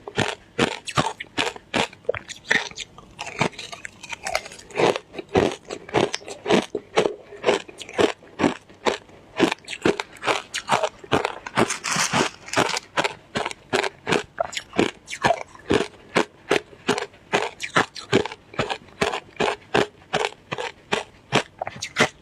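Close-up crunching and chewing of shaved ice, with rapid crisp bites at about three a second.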